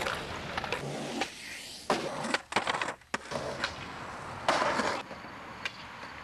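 Skateboards on concrete: wheels rolling, broken by repeated sharp clacks and knocks of boards popping and landing, with several abrupt changes from one short clip to the next.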